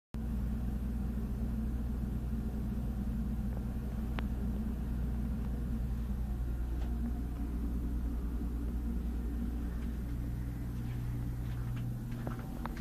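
Steady low drone of a drilling rig's onboard machinery, a constant hum that does not change in pitch. A few light clicks and knocks come near the end.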